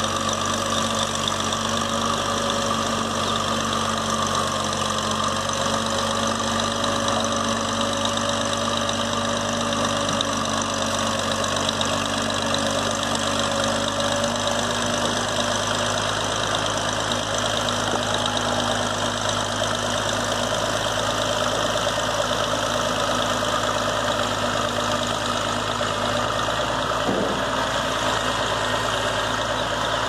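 Crawler bulldozer's diesel engine running steadily as the dozer pushes wet mud and sand.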